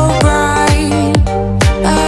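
Background pop music with a steady beat, about two drum hits a second.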